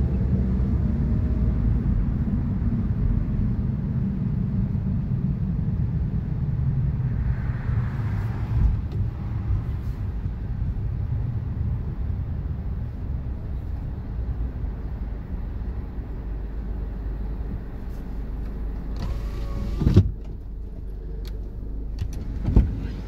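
Car cabin sound while driving: a steady low rumble of engine and tyres that slowly fades as the car slows. Near the end, two sharp knocks, the first with a short squeak.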